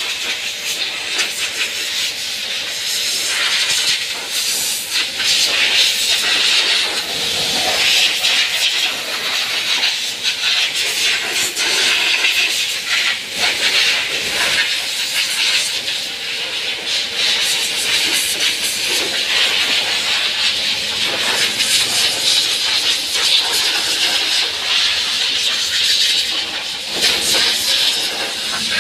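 Compressed air hissing from an air-gun nozzle on a coiled air line, blowing water off a freshly washed motorcycle. The hiss is continuous and swells and fades as the nozzle moves over the bike.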